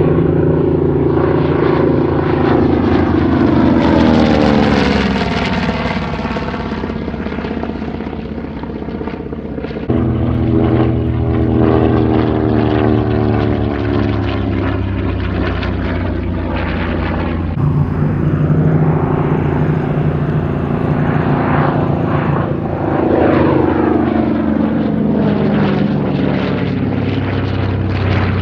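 Grumman TBM-3 Avenger's Wright R-2600 fourteen-cylinder radial engine and propeller running hard in display flight. The engine drone drops in pitch as the aircraft passes, about five seconds in and again near the end, and jumps suddenly louder twice in between.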